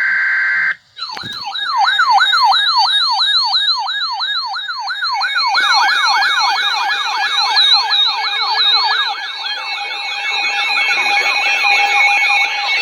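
A steady electronic alert tone cuts off under a second in. After a short gap, several electronic sirens start yelping together, about five fast sweeps a second, drifting out of step with each other. From about five seconds in, a stepped electronic alert tone at a few pitches joins underneath the sirens: the attention signal of an emergency alert broadcast.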